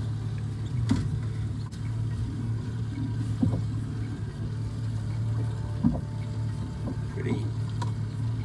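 Outboard motor idling steadily as a low hum, with a few short knocks from handling on the boat.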